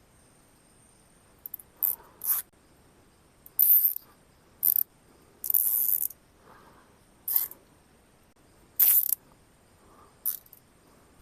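Irregular rustling crunches in dry forest leaf litter and brush, about a dozen short crunches at uneven intervals, under a faint steady high whine.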